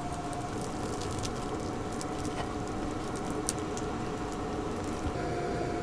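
A steady machine hum with a faint high whine runs throughout, with scattered light taps and squeaks as a fingertip touches and draws on the condensation-covered window glass.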